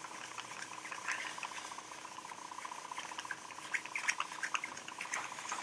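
A cloth rag rubbed briskly back and forth along PVC conduit, a steady scratchy rustle with many small ticks. The rubbing warms the plastic by friction to make it pliable for bending.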